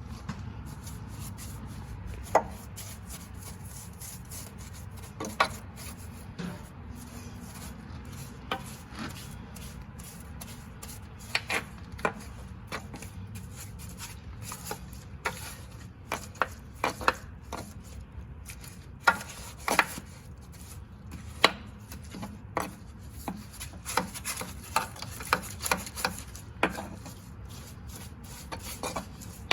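Irregular sharp taps and scraping from hand work, over a low steady hum.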